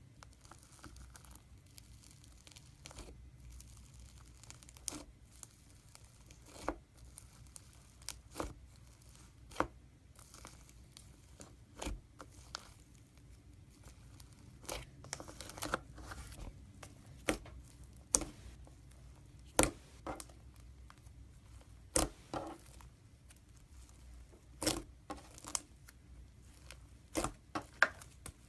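Slime being stretched and squeezed by hand, giving off irregular sticky pops and crackles with quiet stretches between them.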